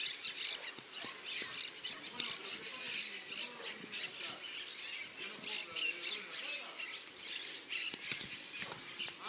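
Several birds chirping and squawking in a continuous chatter of short, high calls.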